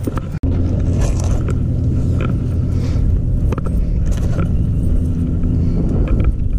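Low, steady engine hum with a few light clicks, starting after a brief dropout about half a second in.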